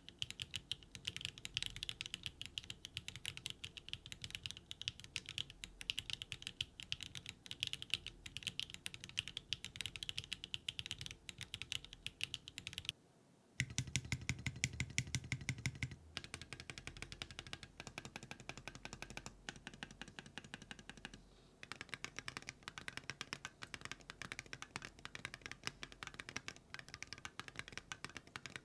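Continuous typing on a NEO75 CU mechanical keyboard with HMX Snowcrash switches and GMK Kitsune plastic keycaps, a clacky sound. About 13 seconds in it cuts to typing on a Keynetix Kelvin keyboard with Geon Raw Zero switches and metal keycaps.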